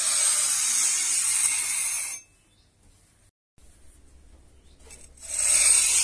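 Small metal hand trowel scraping over sand: one long scrape of about two seconds, then another starting near the end.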